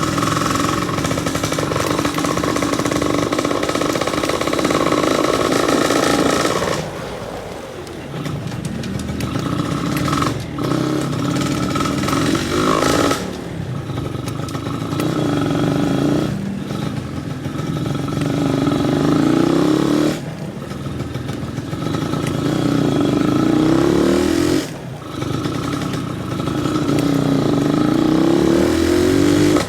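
Yamaha F1ZR two-stroke single-cylinder engine being blipped with light throttle, with a raspy 'ngorok' (snoring) note. The pitch climbs on each blip and falls back sharply when the throttle closes, about five times.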